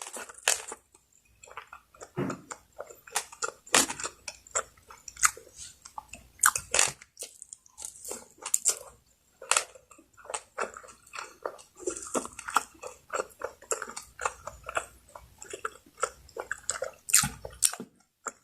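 Close-miked chewing and biting while eating Bicol Express, a pork stew in coconut milk and chilies: an irregular run of many short mouth clicks and smacks, with a brief pause about a second in.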